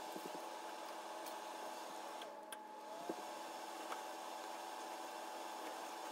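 A steady hum of several held tones under a hiss, with a few light clicks and taps of plastic building bricks being handled, the sharpest about three seconds in.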